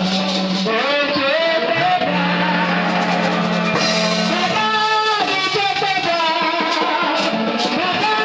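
Live praise and worship music: singing over a band with drum kit, guitar and a held bass note.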